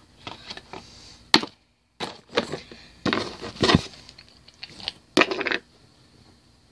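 Makeup items being handled: a string of knocks, clicks and rattles, with a sharp crack about a second and a half in and the loudest knock near the middle. The sound cuts out completely for a moment just before two seconds.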